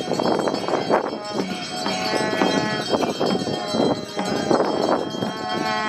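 Metal percussion clanging in an uneven beat about once or twice a second, each stroke leaving a ringing tone that hangs on until the next, as bells and cymbals played in a procession.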